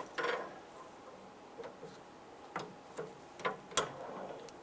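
A few scattered sharp clicks and taps from the metal hood latch rod and its plastic retainer being worked up through the hood bracket.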